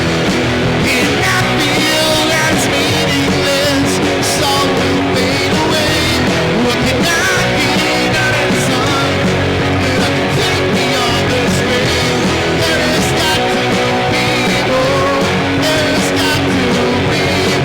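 Loud rock music with electric guitar, steady and dense throughout.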